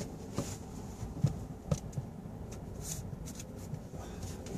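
Handling of a micro USB charging cable as it is unplugged and swapped: light rustling with a few scattered sharp clicks.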